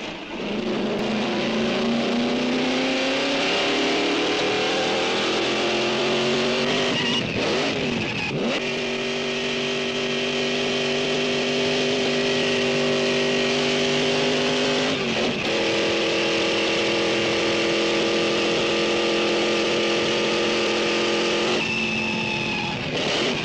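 Alfa Romeo 159 Alfetta's supercharged straight-eight racing engine running hard: the note climbs steadily for the first several seconds, then dips and recovers about seven and fifteen seconds in, and again near the end, holding a steady high pitch between.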